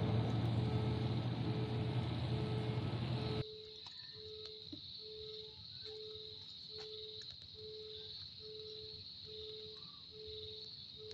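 Road-vehicle noise on a wet road, a broad hiss with a low engine hum, cut off abruptly about three seconds in. Then a steady high chirring of crickets or other insects, with a faint tone pulsing about once a second underneath.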